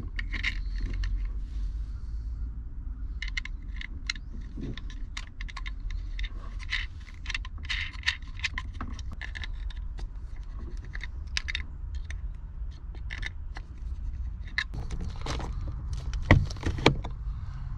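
Small metallic clicks and rattles of cable ring terminals and nuts being handled and fitted onto the studs of a battery cutoff switch, over a steady low rumble. Near the end come two louder clicks as the switch's red knob is turned.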